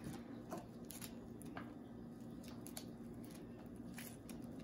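Soft, faint handling sounds of fingers pressing and spreading sticky sushi rice over a nori sheet on a bamboo rolling mat: a few light taps and rustles scattered through, over a faint steady hum.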